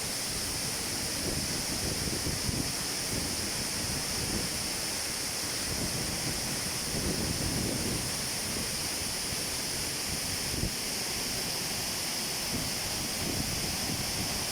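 Steady rush of falling water from a waterfall or mountain stream, with wind buffeting the microphone in irregular low rumbles.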